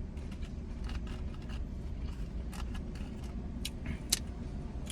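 A few light clicks and scrapes of a spoon against a takeout food bowl while eating, the clearest about two and a half, three and a half and four seconds in, over a steady low hum.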